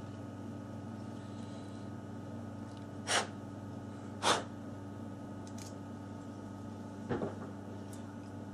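Steady low electrical hum, with two short hissing noises about a second apart and a light double tap near the end.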